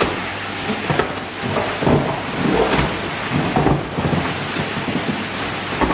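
Pond water sloshing and a large clear plastic fish bag crinkling as a big koi is let out of the bag into the pond, with a few sharper splashes or rustles over a steady rushing noise.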